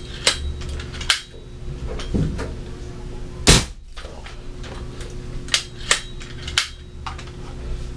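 Air gun being cocked and test-fired after repair: one sharp shot about three and a half seconds in, with the clicks and clacks of the cocking action before and after it.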